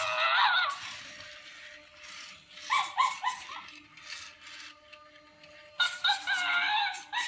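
Zoomer robot chimp toy playing electronic chimp calls from its speaker: three short bursts of chattering, pitch-bending hoots, at the start, about three seconds in and about six seconds in. A faint steady whine runs underneath.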